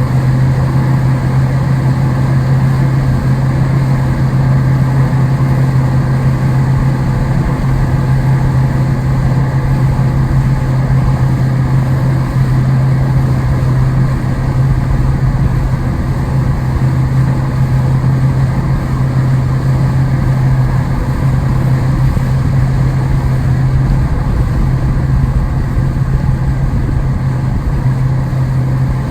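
A steady engine drone with a strong low hum, running evenly without change.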